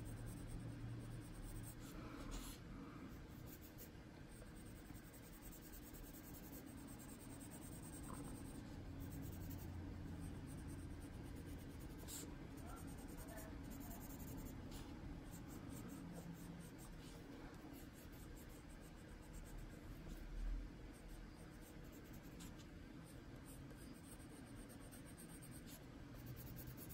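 Faint scratching of a Prismacolor colored pencil shading on paper, with one brief louder bump about twenty seconds in.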